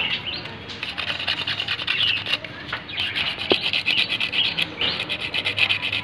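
Abrasive cloth rubbed quickly back and forth over the steel shaft of a motorcycle drum-brake cam, a rapid run of scraping strokes. This cleans the dust and wear off the cam shaft so that it turns freely and the brake stops squeaking.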